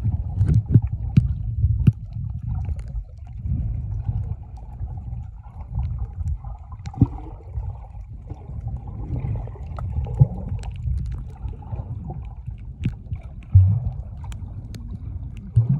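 Water recorded from underwater while snorkeling: a muffled, low rumble of moving water with scattered sharp clicks and knocks.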